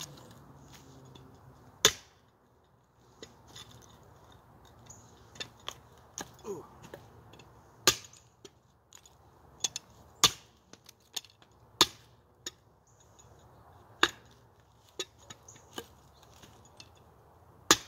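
A Timber Wolf Armor of God bowie knife, with an 11-inch blade, chopping into a piece of firewood. There are six sharp strikes a few seconds apart, with smaller knocks and taps between them. The thin blade bites deep into the wood.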